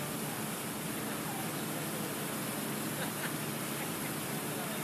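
Steady hiss of fountain water running.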